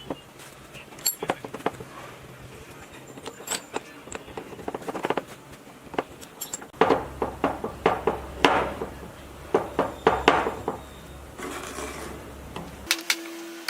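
Metal tools and parts clinking and knocking irregularly during hands-on repair work, denser in the second half with a low hum underneath.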